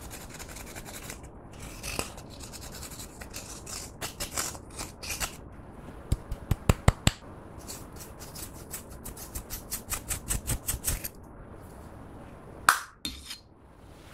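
Pressed eyeshadow being scraped and crumbled out of a plastic heart-shaped compact with a small pointed tool, a run of scratching with sharp clicks and taps. A makeup brush then rubs the pan in a quick series of light ticks, with one louder knock near the end.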